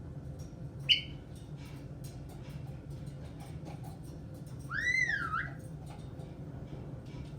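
Caique parrot calling: one short, sharp chirp about a second in, then a whistled note around five seconds that rises, dips and rises again.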